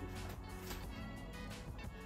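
Background music playing quietly and steadily.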